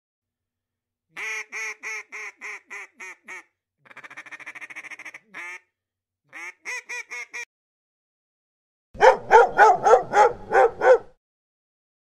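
Duck quacking in four quick runs of short nasal quacks, the last run, about nine seconds in, the loudest.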